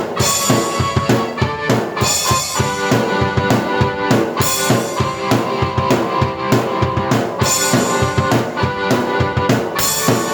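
A drum kit and a keyboard played together: a driving beat of bass drum and snare under sustained keyboard notes and chords, with bright cymbal crashes every few seconds.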